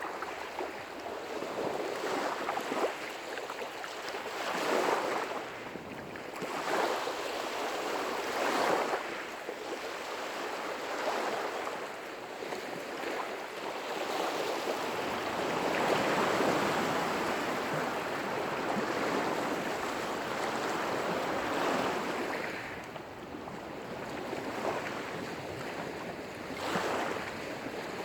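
Lake waves breaking and washing against the shore, a continuous noisy wash that swells and eases every couple of seconds.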